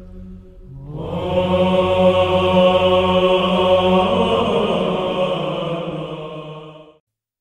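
Slow chanted singing with long held notes over a steady low drone, used as background music. A louder phrase comes in about a second in, then it fades out near the end into a brief silence.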